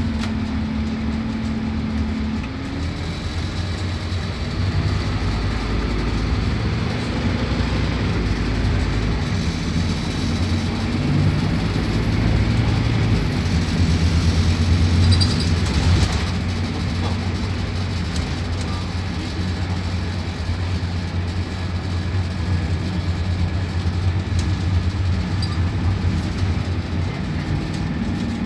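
Scania K280UB bus's five-cylinder diesel engine with ZF automatic gearbox running. The engine holds a steady note for the first couple of seconds, then its note changes as the bus gets under way, rising and growing louder toward the middle before easing off again.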